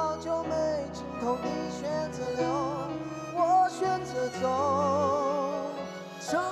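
Live band playing a Mandopop rock ballad, with a held, wavering melody line over sustained chords.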